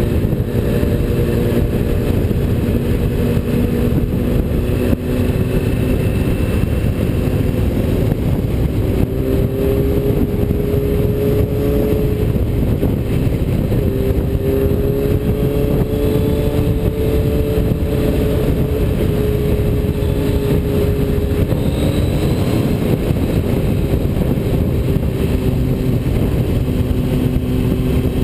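A vehicle engine running steadily under way, its pitch drifting slowly up and down, over a loud continuous rumble of wind and road noise.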